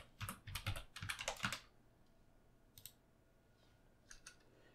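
Faint computer-keyboard keystrokes: a quick run of about eight keys typing a short word over the first second and a half, then a few single clicks later on.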